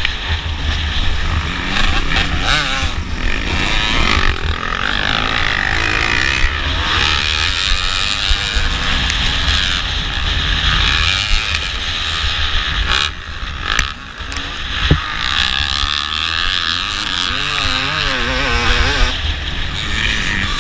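Dirt bike engine running hard under race throttle, heard from a helmet-mounted camera, with the revs rising and falling through the gears. The revs drop off briefly about two-thirds of the way through, then pick up again.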